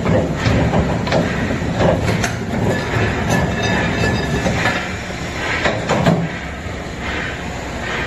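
A fridge-compressor recycling machine turns a sealed refrigerator compressor in its chuck while a cutter slices around the steel shell to free the top dome. It gives a steady machine rumble with continual metallic clatter and a thin squeal near the middle, then a few louder metal clanks later on.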